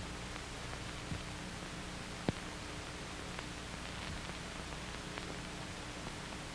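Steady hiss and hum of an old 1940s film soundtrack, with one sharp click about two seconds in and a few fainter ticks.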